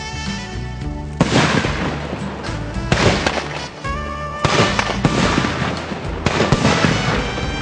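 Fireworks going off in four loud bursts, about every one and a half seconds, over steady background music.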